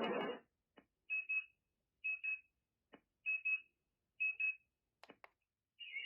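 BT-3401 LED speaker-clock giving short, high double beeps, four times about a second apart, with faint clicks between them. A steady hiss stops about half a second in.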